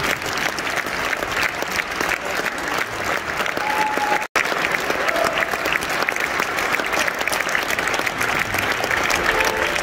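Opera audience applauding, a dense steady clapping that cuts out for an instant about four seconds in.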